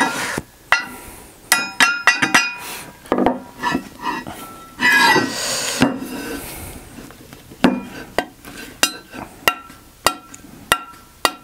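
Irregular metallic clinks and taps as a small taper roller bearing is worked by hand into the tight-fitting bore of a sailboat propeller blade, the bearing walking in rather than dropping straight down. About five seconds in there is a louder scraping clatter.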